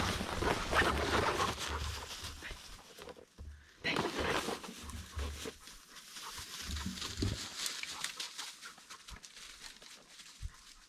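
Dry undergrowth and twigs rustling and snapping as someone pushes through dense scrub on foot, in uneven bursts that are loudest in the first two seconds and again about four seconds in, with low buffeting on the microphone.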